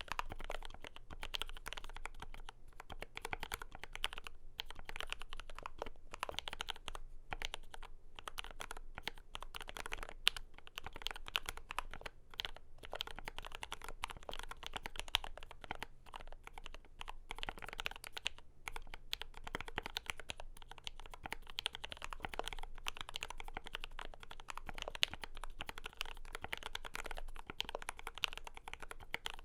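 Steady fast typing on a Glorious GMMK Pro mechanical keyboard with lubed JWK Lavender linear switches and PBT doubleshot Cherry-profile keycaps: quick keystroke clacks with brief pauses now and then.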